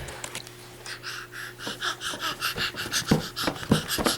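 A baby panting rapidly in short, breathy huffs, about five a second, with a few sharp clicks near the end.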